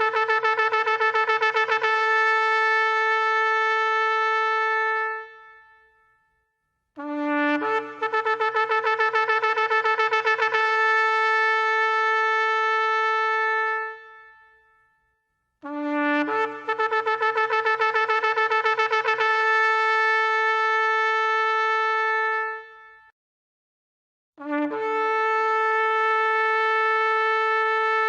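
Shofar blown in long blasts, each opening on a brief lower note that steps up to a held higher tone with a rapid wavering at first, then fading out. Three full blasts with short silences between them, and a fourth beginning near the end.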